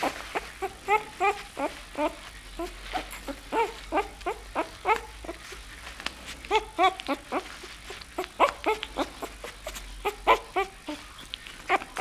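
Nine-day-old bull terrier puppy squeaking over and over: short, high, rising-and-falling cries, several a second, in runs with short pauses between.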